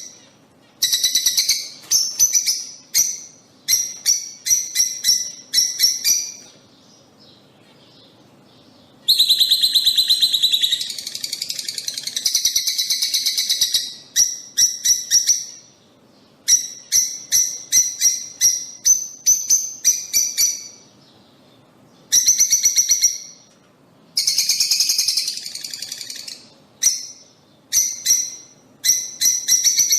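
Lovebirds calling: rapid runs of sharp, high chirps in bursts of one to two seconds, with two longer stretches of dense, continuous chatter and two brief lulls.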